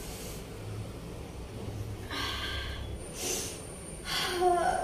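A woman sniffling and breathing sharply through the nose, her eyes stinging from freshly cut onions, in a few short bursts, followed near the end by a brief voiced sound.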